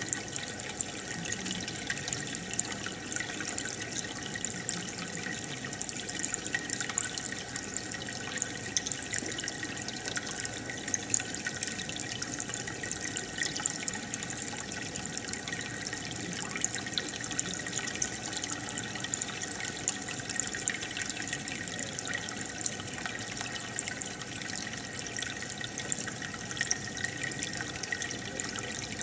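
Aquarium water trickling and bubbling steadily, with a constant patter of tiny pops.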